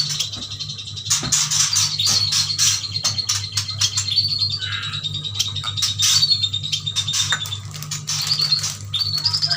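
A group of Kalimantan yuhinas (chestnut-crested yuhinas) chirping and trilling rapidly, many high calls overlapping, over a steady low hum.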